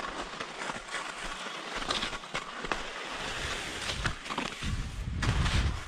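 Skis hissing and scraping over snow on a downhill run, with short clicks and chatter from the skis. Near the end, a low rumbling buffet joins in, like wind on the camera's microphone.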